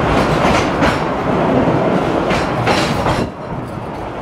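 Cars of the Cumbres & Toltec narrow-gauge train rolling through a rock tunnel: a steady rumble that echoes off the walls, with two pairs of clicks as the wheels cross rail joints. The sound drops and the echo fades a little after three seconds, as the train leaves the tunnel.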